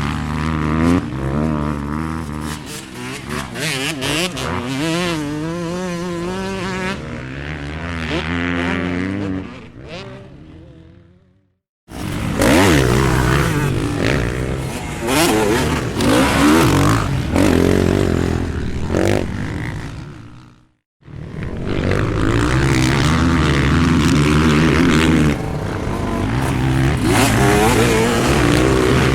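Off-road motorcycle engines at a race, revving up and down with a wavering pitch. The sound cuts to silence twice, at about 12 and 21 seconds in, and starts again each time; before the first gap it fades away.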